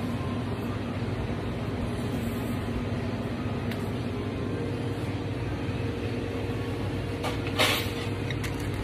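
Steady low mechanical hum with several constant low tones, with a faint click partway through and a short, louder rustle-like burst near the end.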